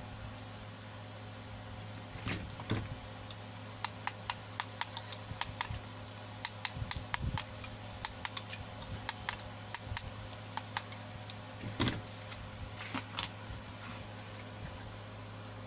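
Rapid, irregular light clicks and taps of small hard objects being handled on a workbench, over a steady low electrical hum.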